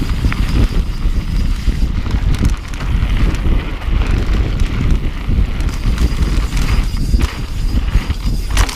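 Wind buffeting the microphone of a bike-mounted camera as a mountain bike rides fast down a dirt singletrack, with tyre noise on the dirt and scattered clicks and rattles from the bike.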